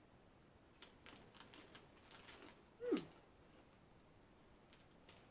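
Faint, irregular clicks and crinkles of a Shapes cracker packet being opened by hand. About three seconds in there is one short squeak that falls in pitch.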